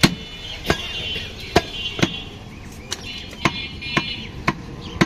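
Heavy butcher's cleaver chopping through raw meat into a wooden stump block: about nine sharp chops at an uneven pace.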